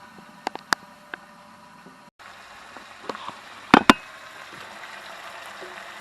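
A covered pot of chicken feet simmering on the stove with a steady bubbling hiss, broken by a few sharp clicks, the loudest two just before four seconds in.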